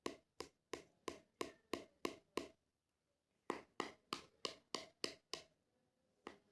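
Cockatiel tapping its beak against a hard object in quick runs of sharp taps, about three a second. There are two runs of seven or eight taps with a pause of about a second between them, then a single tap near the end.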